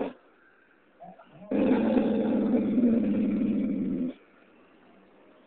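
Small white dog growling for about two and a half seconds, starting about a second and a half in, after a brief faint sound. It is a mock growl the dog performs on command as a trick, not a real attack.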